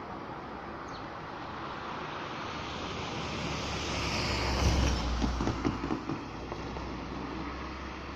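Road traffic noise that swells to a peak about halfway through, with a deep rumble as a vehicle passes close, then eases back.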